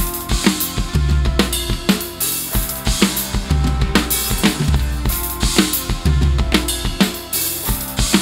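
Rock drum kit played hard in a driving pop-punk beat, with kick drum, snare and crashing cymbals, over a backing track with bass and guitars. It comes back in with a hard hit after a brief lull just before.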